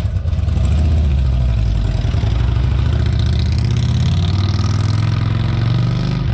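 Cruiser motorcycle engine running loudly and accelerating as the bike pulls away.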